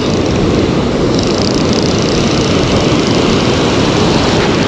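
Ocean surf breaking and washing around, with wind buffeting the microphone: a loud, steady rush of noise.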